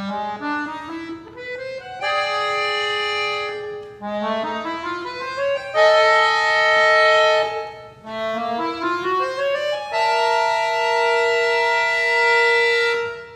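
Accordion playing three rising runs of quick notes, each ending on a held chord, the last chord held longest before it breaks off near the end.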